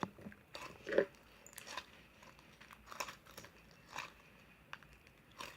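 Borax-activated glue slime being squeezed and kneaded by hand, giving a scattering of small crackling clicks and pops, the loudest about a second in.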